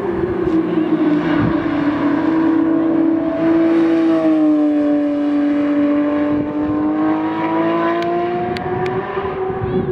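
Car engine running hard at fairly steady revs, its pitch sagging slightly around the middle and climbing back near the end, with road and wind noise underneath. A few faint clicks near the end.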